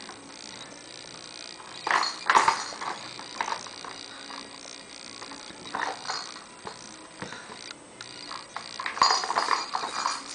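Plastic and metal clattering and knocking in irregular bursts as a toddler handles a dishwasher's silverware basket and her toys. The loudest clusters come about two seconds in and again near the end.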